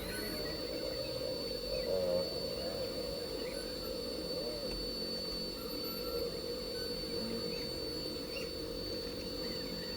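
A steady high-pitched electrical whine over a low hum, which cuts off suddenly near the end.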